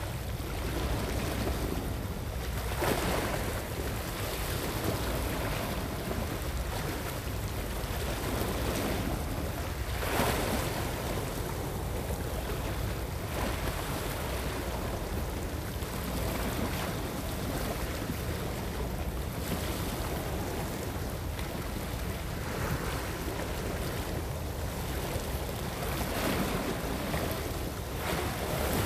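Sea waves washing against shore rocks, with a swell coming in every several seconds, over a steady low rumble of wind on the microphone.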